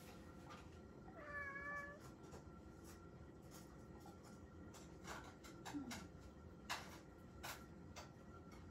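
Domestic cat giving a single meow a little under a second long, about a second in, followed by a few faint clicks over quiet room tone.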